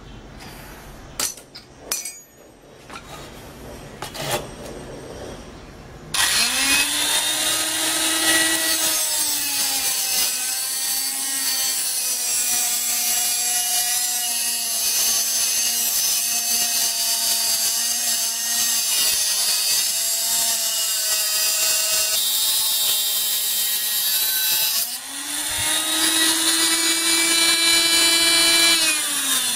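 Handheld angle grinder with a cut-off disc. First a few light metallic clicks and knocks as the disc is fitted, then about six seconds in the motor starts with a rising whine. It runs loudly, its pitch dropping and wavering under load as the disc cuts the metal workpiece, and it rises again to full speed near the end.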